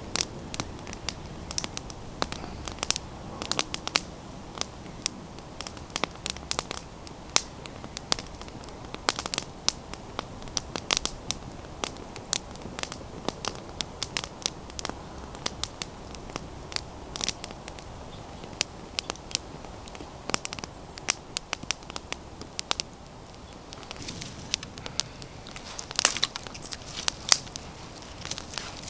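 Wood campfire crackling, with frequent sharp, irregular pops.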